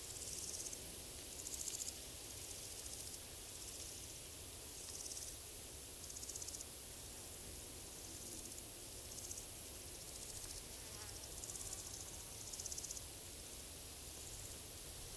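Crickets chirping in short, high, buzzing trills that repeat about once a second or so, over a faint steady hiss of forest ambience.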